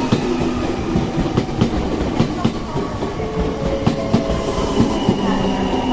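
Nankai electric commuter train running past close by, its wheels clattering over rail joints in a quick irregular series of clicks, with a motor whine rising in pitch through the second half.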